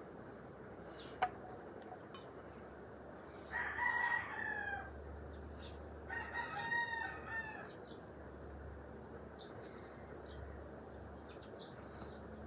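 A rooster crowing twice, faint, over a steady low hiss, with a single sharp click about a second in.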